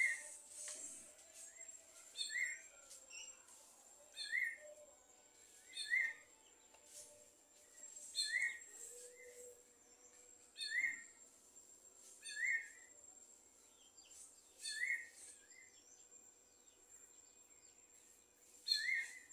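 Sabiá-gongá calling a short, pitched note about every two seconds, about nine times, over a faint steady high tone.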